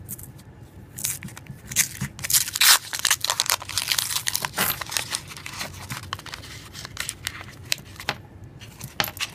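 Paper wrapper of a 50-cent penny roll being torn and crumpled open, a dense crackle for several seconds, followed by lighter clicks of pennies sliding out of the roll.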